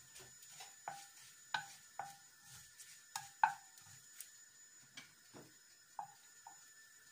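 Wooden spoon stirring spices in a nonstick wok, knocking lightly against the pan about ten times at an uneven pace, each knock with a short ring.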